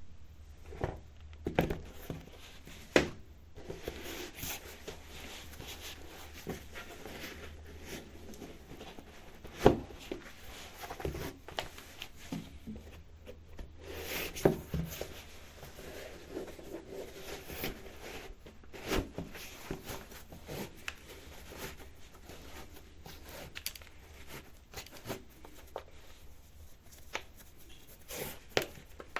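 Sneakers being put on by hand: irregular rustling and scuffing of the shoes, with scattered sharper knocks, the loudest about ten seconds in.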